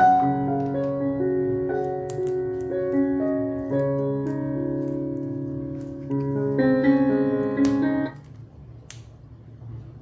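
Background piano music with slow, gently changing chords that cuts off about eight seconds in, leaving a faint low rumble with a couple of sharp clicks.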